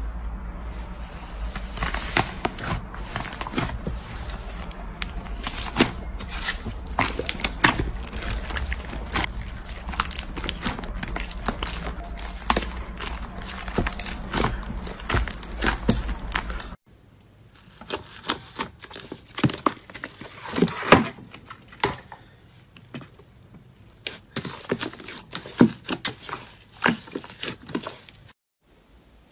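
Hands pressing and kneading thick white slime: a dense run of small clicks and crackling pops from air pockets in the slime, over a low steady hum. About seventeen seconds in, the sound cuts to a different, glossy green slime, with sparser, sharper pops and clicks.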